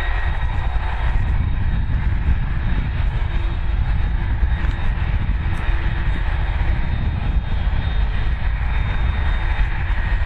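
Airbus A330-200 jet engines running at low taxi thrust as the airliner taxis onto the runway: a steady low rumble with a thin, high, steady whine.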